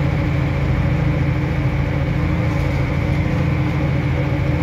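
Unimog truck's engine and drivetrain running steadily under way, heard inside the cab: a loud, even rumble with a constant hum over it.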